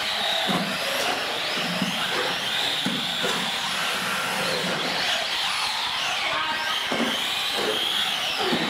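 A pack of electric radio-controlled UTV race cars running flat out together, their motors whining and rising and falling in pitch as they accelerate and slow for the turns.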